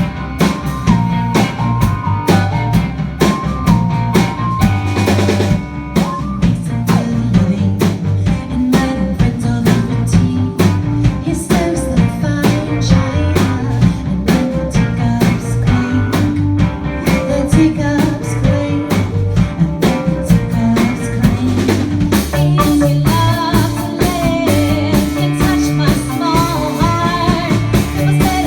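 A rock band playing live, with drum kit, bass and guitar driving a steady beat. About three-quarters of the way through, a new melodic line with bending pitch comes in over the top.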